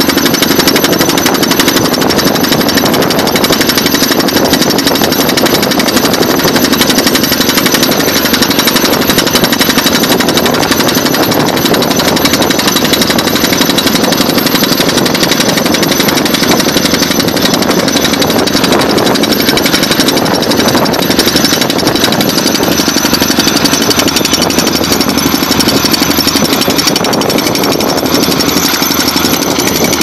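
Pneumatic down-the-hole hammer of a tracked pile-driving rig boring into the ground: rapid, steady hammering that goes on without a break.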